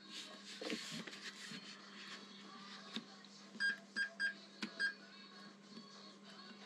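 Electrical continuity tester beeping four short times in quick succession about four seconds in, each beep marking a closed circuit as the probes bridge a welded joint in the heated-grip wiring. Faint clicks from the probes are heard around the beeps.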